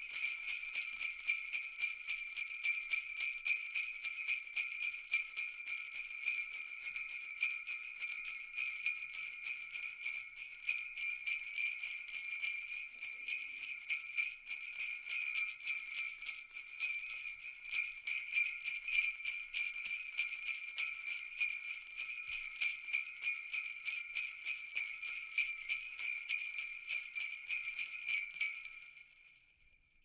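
Jingle bells shaken over and over in a quick, even rhythm, a bright metallic jingling that fades out near the end.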